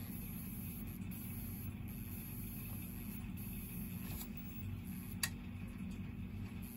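Steady low hum, with a single sharp click about five seconds in as the reset on a Burnham Alpine boiler's Sage controller is released and the controller drops out of hard lockout.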